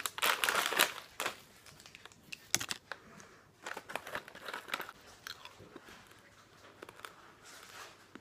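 Crunchy cinnamon apple chips being bitten and chewed close to the microphone: dense crunching for about the first second, then scattered crunches that thin out and fade.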